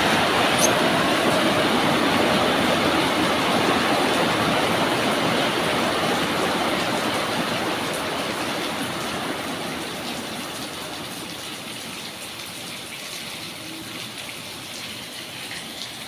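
Rain falling as an even hiss that dies away over the second half, as the short shower eases off.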